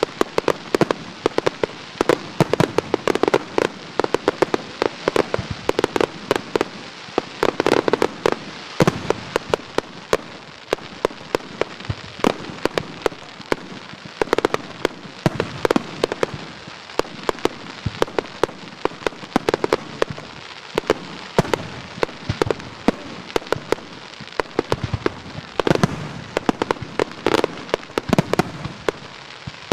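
Fireworks going off in rapid succession: a dense, continuous stream of sharp pops and bangs as shots launch and burst, with several denser volleys along the way.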